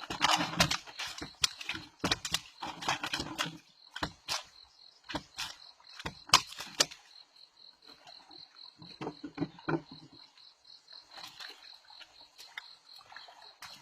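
Irregular sharp knocks and thumps, clustered in the first half. A steady, high, pulsing insect trill comes in about halfway through.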